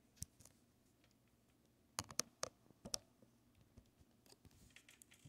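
Near silence broken by a few faint clicks and taps of handling, with a quick cluster of them about two seconds in.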